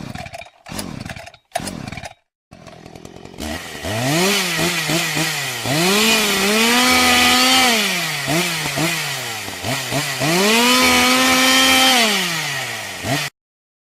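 A chainsaw running and revving up and down several times, its pitch climbing, holding high and dropping again, then cutting off suddenly near the end. A few short broken sounds come before it in the first two seconds.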